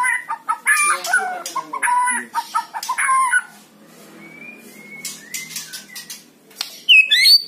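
White-rumped shama singing. A fast, varied run of loud whistled and chattering phrases gives way about halfway through to softer whistles, and a few sharp, high notes come near the end.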